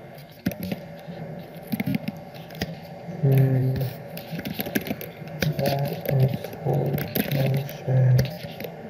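Typing on a computer keyboard: irregular key clicks throughout. A voice says words now and then between the keystrokes.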